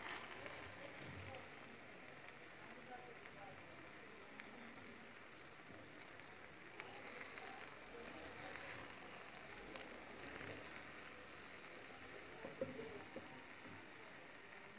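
Wooden spoon stirring cooked bulgur in an unglazed clay pot: faint soft crackling and scraping of the grains, with a few light knocks of the spoon against the pot.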